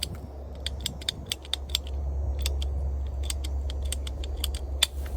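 Ratcheting PVC pipe cutter clicking in a string of sharp, irregular clicks as it is squeezed through a PVC pipe.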